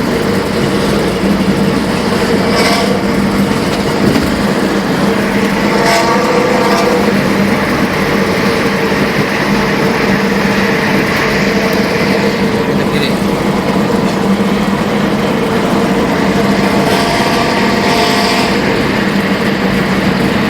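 Bus engine and exhaust running steadily at highway speed, a constant deep drone with a 'snoring' (ngorok) exhaust note.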